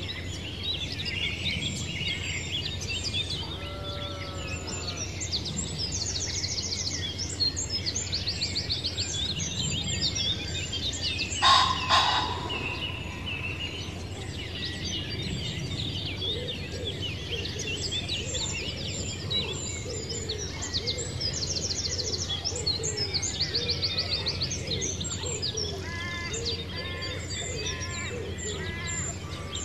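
Many birds chirping and trilling together, with one louder rapid rattling call near the middle, over a steady low hum.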